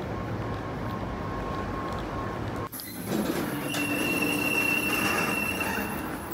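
Outdoor street ambience, then after a sudden cut about three seconds in, a loud, steady high-pitched squeal with a lower tone under it that lasts about three seconds before fading.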